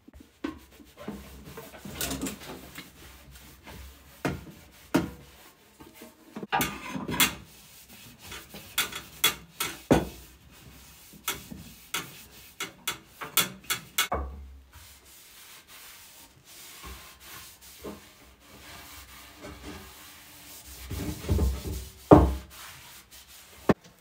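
A terry-cloth rag rubbing and wiping over metal motorcycle parts in irregular strokes, with scattered clicks and knocks as the parts are handled. Near the end comes a louder knock.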